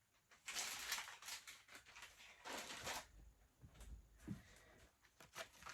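Packaging rustling as products are handled and taken out of a box: two short bursts of rustling, about half a second in and again around two and a half seconds, with a few faint knocks between.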